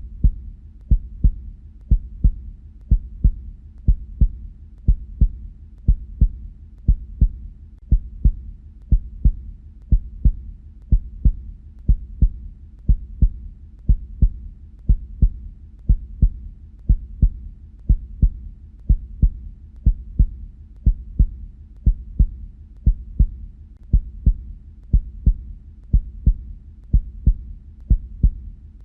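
Human heartbeat at a steady rate of about one beat a second, each beat a low double thud (lub-dub): the knocking of the heart valves closing.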